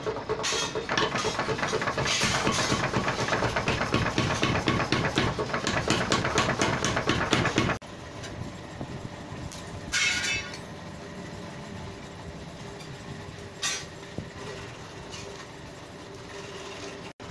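Rapid, steady hammering on a steel trowel blade, several blows a second, which cuts off abruptly about eight seconds in. A quieter background follows, with a few single sharp knocks.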